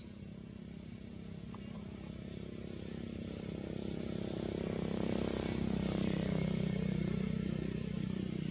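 A motor vehicle's engine running nearby, growing louder over the first few seconds and then holding steady, its pitch shifting in the second half. A brief click right at the start.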